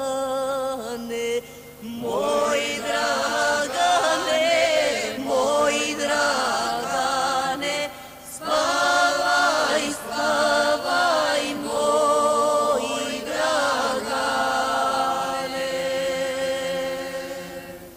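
A woman singing a slow folk song in long, drawn-out, ornamented notes with a wide vibrato, in several phrases with short breaks between them.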